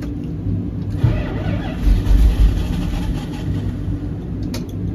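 A cammed Dodge engine running, with a brief rise in revs about two seconds in.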